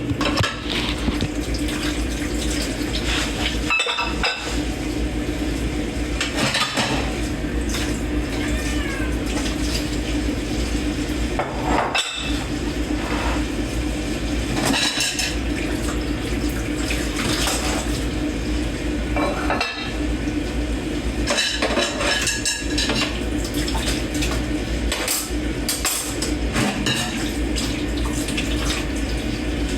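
Dishes and cutlery being washed by hand in a kitchen sink: irregular clinks and clatters of plates and forks over a steady wash of water.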